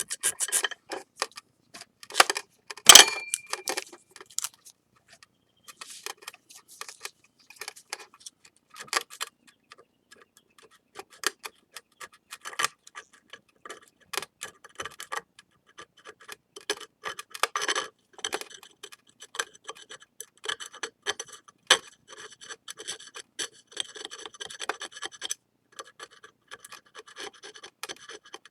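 Wet sandpaper rubbing over a ceramic plate's lacquer repair in short, irregular strokes, with scattered light clicks and scratches, while excess lacquer is sanded off. A sharp knock with a short ring comes about three seconds in.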